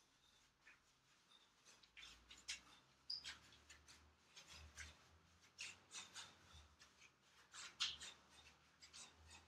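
Faint, irregular scuffs and rustles of sneakers shuffling and stepping on artificial turf during shadowboxing footwork.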